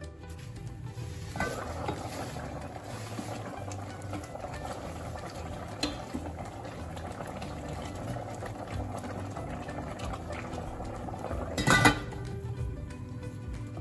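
Tomato-and-onion sauce with beef rolls boiling steadily in an open stainless steel pot. Near the end the steel lid is set back on with a loud clank.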